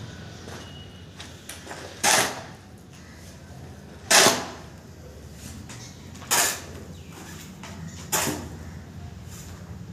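Steel phawda hoe scraping over a concrete floor while sand-and-cement mortar is mixed with water: four sharp scraping strokes about two seconds apart.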